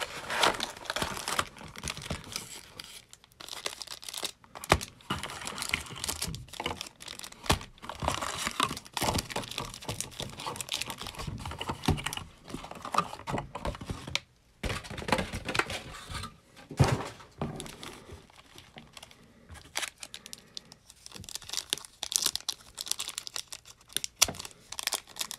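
Foil trading-card packs and their packaging crinkling and tearing as they are handled and opened, with irregular crackles and sharp clicks.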